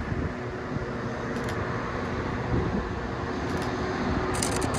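Distant Class 66 diesel locomotive, a two-stroke V12, hauling a train of tank wagons and approaching: a steady engine drone that grows slowly louder. Near the end, a rapid high crackling sets in.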